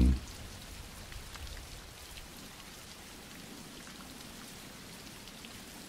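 Steady rain falling, an even hiss with faint scattered drop taps: a rain background track.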